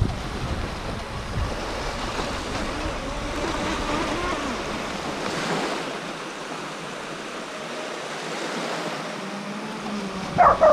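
Small waves lapping at the shore with wind buffeting the microphone, and the faint whine of an FT012 RC racing boat's electric motor rising and falling out on the water. A dog barks near the end.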